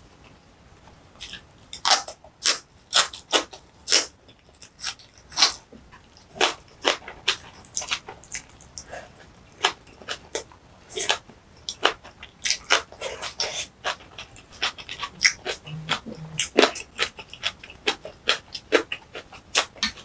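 Close-up eating sounds of spicy green onion kimchi being chewed: wet chewing, crunching and lip smacks, heard as irregular sharp clicks about two or three a second, with two brief low hums about 16 s in.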